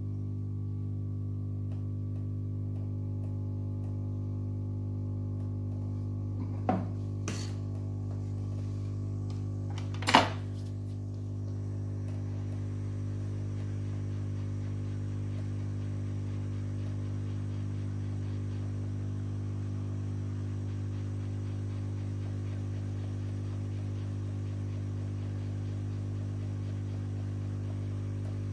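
Hot-air rework station running with a steady mains hum while it heats a phone board's power-management IC to reflow its solder; a faint hiss of air joins about twelve seconds in. A few sharp clicks fall around seven seconds in, the loudest near ten seconds.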